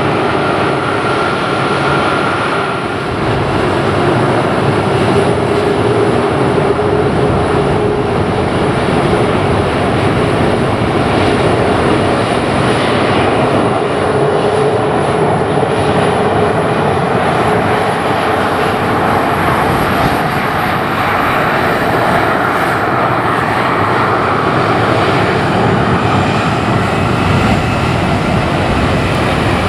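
Boeing KC-135R Stratotanker jet engines running close by, a steady loud jet noise with tones in it and a thin high whine that rises slowly in the second half, as the tankers move along the runway for a formation takeoff.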